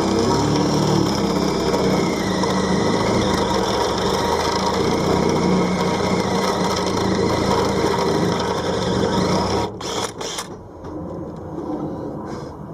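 Power drill running a step drill bit, cutting steadily to widen a hole. It stops about ten seconds in, followed by a couple of brief knocks.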